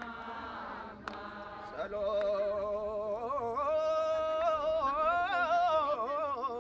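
Amharic patriotic song: a singer draws out a long held note with vibrato between sung lines, the pitch climbing and then falling in the second half.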